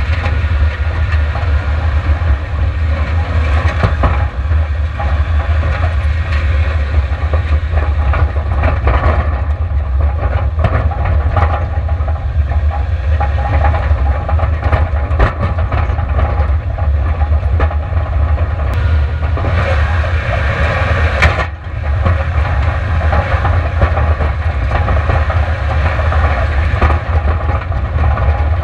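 Subaru Outback's flat-four engine and drivetrain running hard over a rough, rocky dirt track. There is a steady deep rumble of tyres and suspension, with frequent clattering knocks from stones and suspension hits. The noise dips briefly about three-quarters of the way through.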